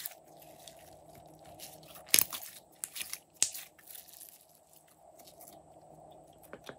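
Glossy slime squeezed and stretched between two hands: sticky, wet crackling and clicking as air pockets in the slime burst, with a few sharper pops about two, three and three and a half seconds in, the loudest near two seconds.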